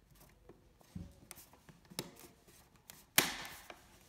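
Light plastic clicks and taps as a screwless snap-on wall plate is pressed over the outlet, then one sharp snap about three seconds in as it clicks onto its mounting bracket.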